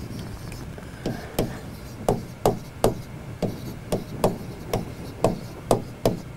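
Stylus tapping and knocking against an interactive whiteboard screen as letters are handwritten, a sharp tap about twice a second.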